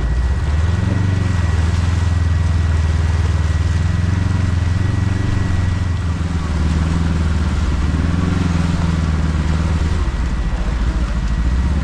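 Side-by-side UTV engine running while driving, its pitch shifting slightly with the throttle, over wind and gravel road noise, with a faint steady high whine.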